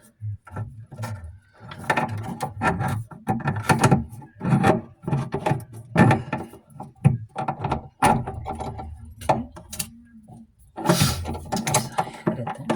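Irregular mechanical clicking and clattering as a hand tool works plumbing fittings under a bathroom sink, with a short lull about ten seconds in and a louder run of clicks near the end.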